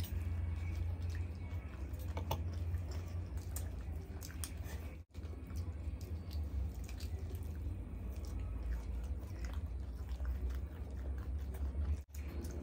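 Close-miked chewing and mouth sounds of people eating chole bhature: soft wet smacks and small clicks over a steady low hum. The sound cuts out abruptly twice, about 5 and 12 seconds in.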